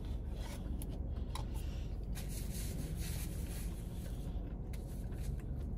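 Soft rubbing and scraping handling sounds with scattered faint clicks, over a steady low rumble.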